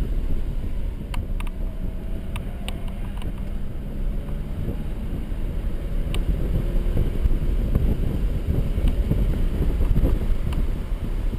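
Mercedes-Benz C300 4MATIC driven at speed on a wet track: the engine runs under load over a steady rush of road and wind noise, with scattered sharp ticks.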